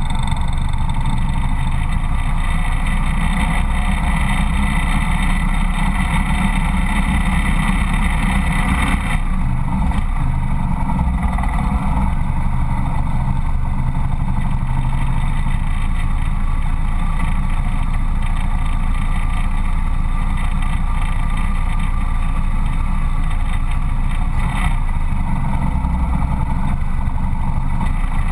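A Harley-Davidson Road King motorcycle's engine running steadily at low road speed.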